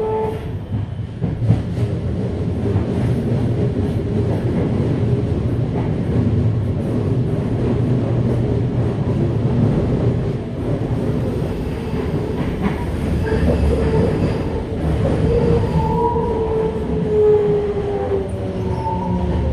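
Onboard running noise of a Toei 5300 series electric train: steady wheel-and-rail rumble with light clacks. In the last few seconds a whine from the traction motors falls in pitch as the train slows.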